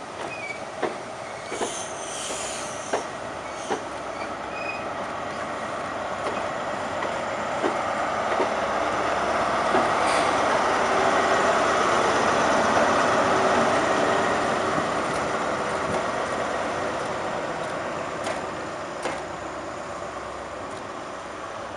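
InterCity 125 high-speed train moving slowly past, its wheels clicking over the rail joints. The Class 43 power car's diesel engine swells in the middle as it goes by, then fades as the train draws away.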